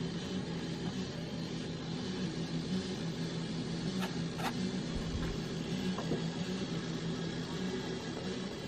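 A low, steady drone whose hum swells and fades in slow pulses, with two short clicks about four seconds in.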